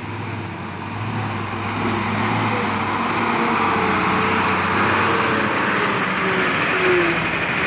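Heavy road traffic passing close, likely a large truck: engine and tyre noise swells about a second in and stays loud, with a faint falling tone in the second half.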